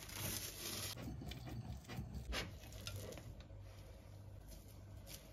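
Faint kitchen handling sounds: a few soft taps and clicks over a low steady hum.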